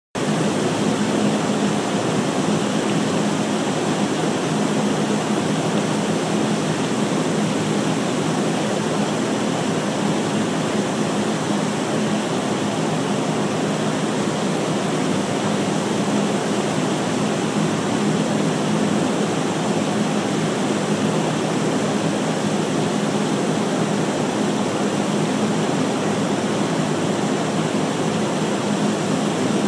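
Condenser-water plant of a chiller running: a steady rushing like falling water, with a steady low hum underneath, from the cooling tower and the condenser-loop pump.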